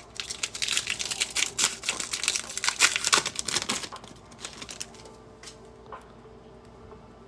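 Wrapper of a trading-card pack crinkling and tearing as it is ripped open, a dense crackle for about four seconds, then a few light ticks as the cards are handled.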